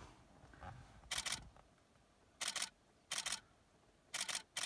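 Single-lens reflex camera shutter firing in continuous bursts: about five short runs of several rapid clicks each, roughly a second apart.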